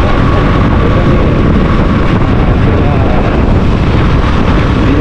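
Loud, steady wind noise buffeting the microphone of a moving motorbike, with the bike's running engine beneath.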